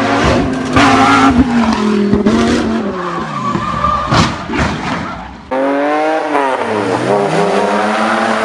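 A supercar engine at high revs, its pitch falling as it slows, with tyre squeal and sharp cracks. About halfway through, a different sports car's engine takes over, its pitch dipping and then climbing again as it revs.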